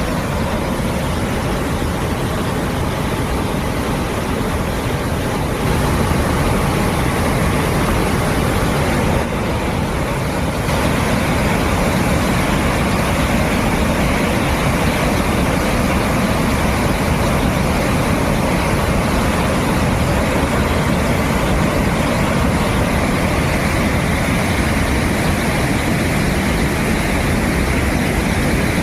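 Waterfall's steady rush of falling water: a dense, even roar with a deep rumble, stepping up slightly in level about six seconds in.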